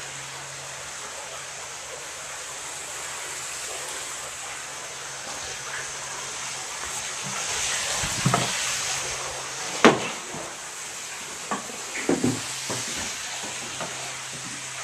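Steady rushing hiss with a low hum from the running equipment of an Archimedes screw hydro plant. A few sharp knocks come in the second half.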